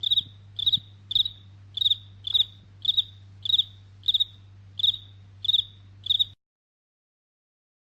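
Cricket chirping sound effect: about ten short, high chirps at a steady rate of a little under two a second, each a quick double or triple pulse, over a faint low hum. It cuts off abruptly about six seconds in.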